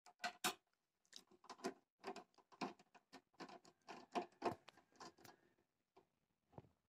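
Screwdriver clicking and scraping in a screw as it is turned out of an inverter's casing: a faint, quick, irregular run of clicks that thins out near the end.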